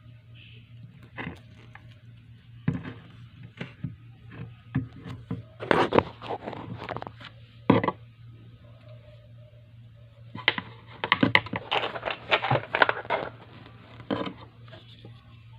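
Packaging of a boxed prize figure being handled and opened: irregular bursts of scraping, rustling and crinkling, busiest around six seconds in and again from about ten to thirteen seconds, over a steady low hum.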